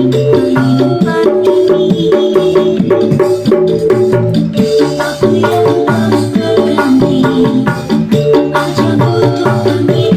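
Dangdut music with a ketipung hand drum played in a quick, busy rhythm. The low, pitched drum tones sit over other sustained instruments.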